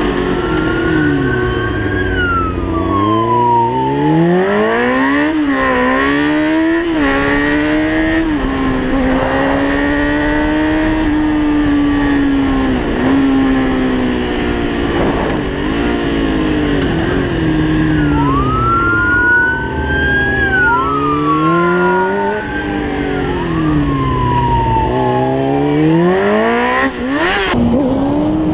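Motorcycle engine revving hard and climbing through the gears, its pitch rising and dropping sharply at each shift. A siren wails up and down over it, most clearly near the start and in the second half.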